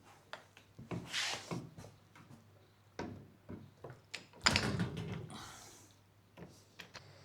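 Irregular knocks, taps and scrapes of hand tools and metal at a jeweller's bench, with a louder clatter about four and a half seconds in.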